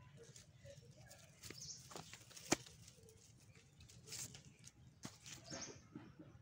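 Faint rustling and light clicks of someone moving over dry, leaf-littered ground, with one sharp click about two and a half seconds in and more rustling in the second half.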